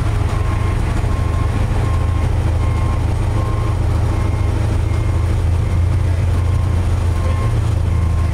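A steady, loud low engine rumble, with a short high beep repeating on and off over it.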